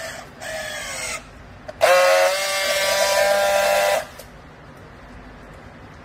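Handheld battery-powered plastic-strapping tool running its motor on a bale strap: a short whine falling in pitch as it pulls the strap tight, then about a second later a louder, steady whine lasting about two seconds as it seals the strap.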